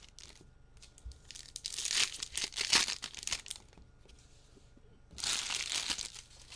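Plastic trading-card pack wrappers crinkling as they are handled and torn open, in two bursts, the second near the end.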